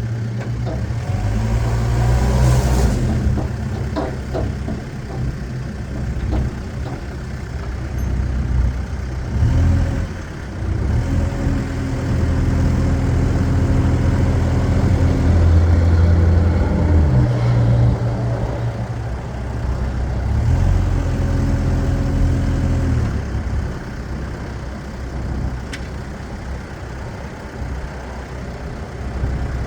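Case 590 Super M Series 3 backhoe's diesel engine running, speeding up and holding a higher pitch for several seconds twice, about ten seconds in and again about twenty seconds in. A few short knocks sound about two to four seconds in.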